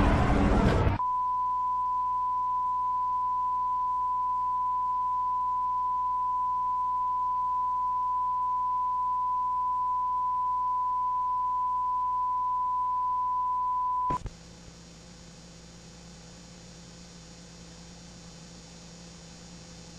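A broadcast test tone: a single steady, unbroken beep at one pitch that starts after about a second of loud noise and cuts off suddenly about 14 seconds in. A faint low hum with thin steady tones follows.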